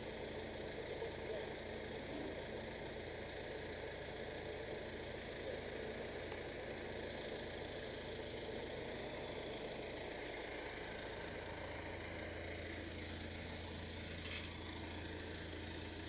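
John Deere 310D backhoe loader's diesel engine idling, a steady low hum.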